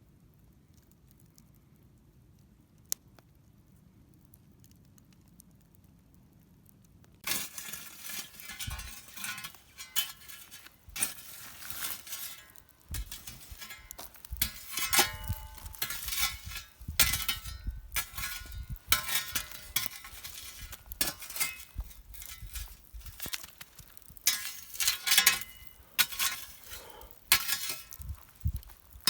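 Near silence with a single click, then from about seven seconds in a busy run of clinks, clatters and knocks, some ringing briefly, as of metal cookware and utensils being handled.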